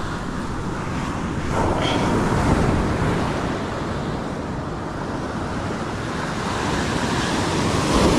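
Ocean surf breaking and washing up a steep beach, with wind noise on the microphone. The wash swells about a second and a half in and again near the end.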